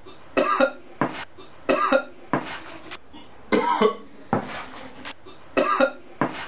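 A man coughing and gasping in short bursts, about one a second, his mouth burning from a bite of very hot ají pipí de mono chili.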